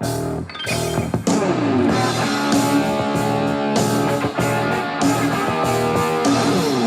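Rock music with guitar: a couple of separate chords, then the full band with drums comes in about a second in and plays on steadily.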